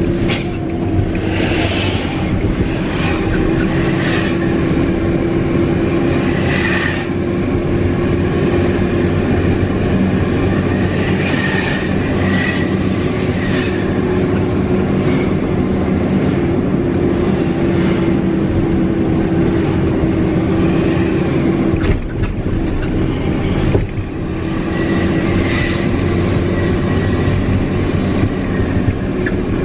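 Mitsubishi Fuso Fighter truck's turbocharged diesel engine running steadily under way, heard from inside the cab, with short high whistles now and then from the turbo. The drone dips briefly twice about two-thirds of the way through.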